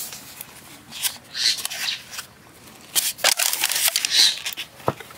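Styrofoam takeaway food box being snapped shut and a rubber band stretched around it: short squeaky rustles and creaks of the foam lid, with a few sharp clicks.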